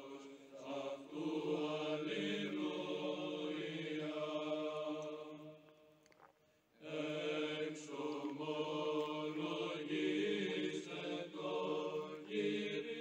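Slow vocal chant in long held notes, with a short break about six seconds in before it resumes.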